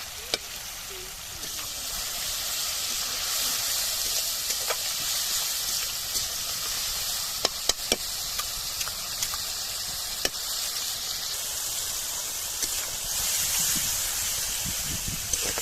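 Food frying in hot oil in a pan, a steady sizzle, with a few sharp clicks of a spatula against the pan.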